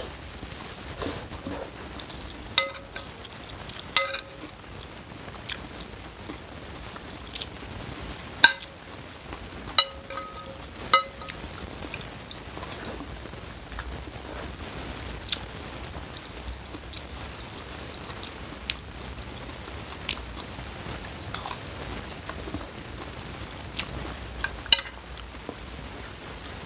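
A person eating noodle soup: slurping and chewing noodles, with about a dozen sharp clinks of a metal spoon and fork against the bowl, each ringing briefly. The clinks are the loudest sounds.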